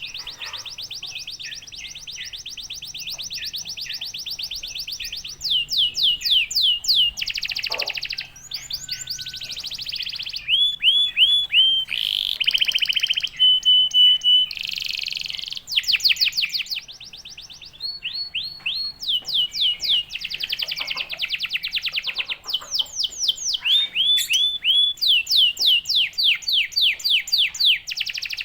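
Domestic canary singing a long, fast song: rolls and trills of rapidly repeated sweeping notes, high-pitched, with a few short held notes and brief pauses between phrases.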